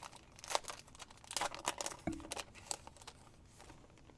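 Foil wrapper of a trading-card pack crinkling and crackling in the hands as it is opened, in short irregular bursts that die away near the end.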